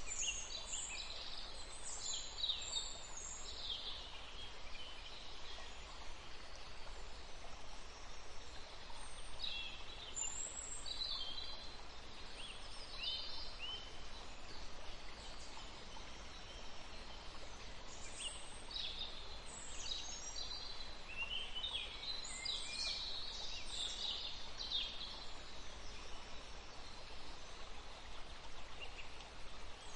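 Forest ambience: birds calling in clusters of short, high chirps over a steady background hiss, busiest near the start and again in the second half.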